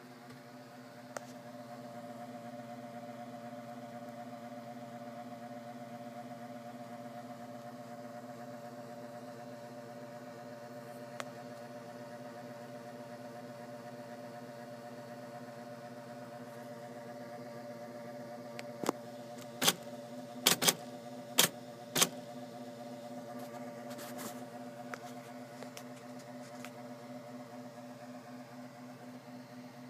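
IBM Selectric II electric typewriter's motor humming steadily, starting just after a click about a second in. About two-thirds of the way through comes a quick run of about six sharp typing strikes.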